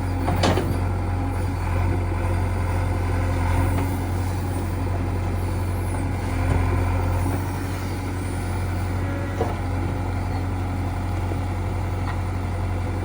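A JCB 3DX backhoe loader's diesel engine runs steadily as it works, with a sharp knock about half a second in and another about nine seconds in.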